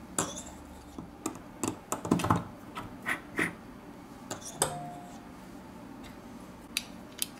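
Irregular small clicks and taps of metal hand tools on the internal parts and taped bracket of an opened smartphone.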